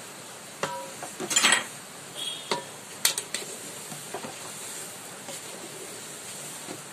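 Wooden spoon stirring semolina in hot ghee in a large metal pot, knocking and scraping against the pot several times, loudest about one and a half seconds in, over a faint steady sizzle.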